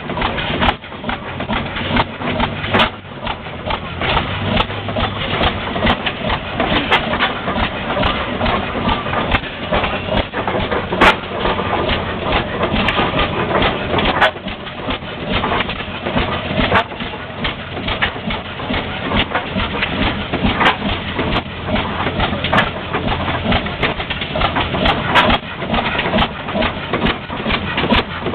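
13 hp Ball oilfield engine running, a steady mechanical clatter with frequent irregular sharp clicks and knocks.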